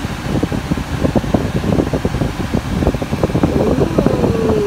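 A car's air-conditioning fan blowing steadily.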